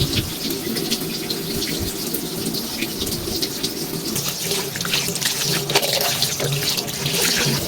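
Water running from a tap and splashing, with steady small crackles throughout.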